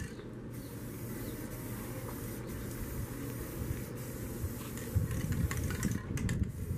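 Aerosol can of Rust-Oleum bright metallic spray paint spraying in a steady hiss, with wind rumbling on the microphone and a few clicks near the end.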